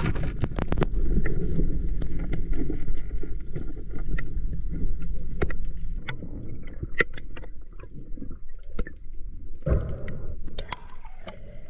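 Underwater sound picked up by a diver's action camera: a steady rumble of moving water against the housing as the freediver swims upward holding a crayfish, with many scattered sharp clicks and a short louder whoosh near the end.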